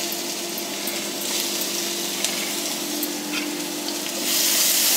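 Pointed gourd (parwal) pulp and seeds sizzling in hot oil in a kadhai, a steady hiss that gets louder about four seconds in.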